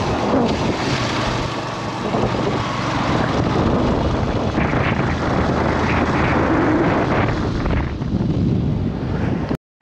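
Loud wind buffeting on the microphone of a moving motorcycle, with the bike's engine running underneath. The sound cuts out suddenly just before the end.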